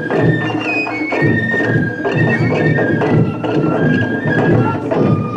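Wadaiko ensemble playing: Japanese taiko drums struck in a dense, driving rhythm under a melody of held notes from several shinobue bamboo flutes playing together.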